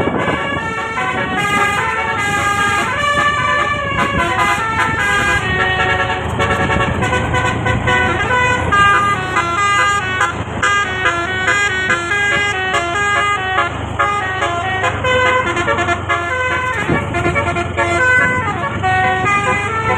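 Basuri telolet bus horn, a multi-note air horn on a bus, playing a melody of quickly changing notes, often several tones at once.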